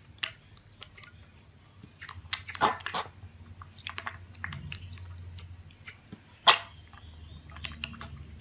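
A piglet lapping milk from a steel bowl: irregular wet slurping clicks, the loudest about six and a half seconds in.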